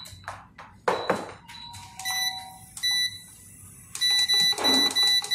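Induction cooktop's control panel beeping as its buttons are pressed: a single beep about two seconds in, another about three seconds in, then a quick run of about five beeps near the end. A knock about a second in.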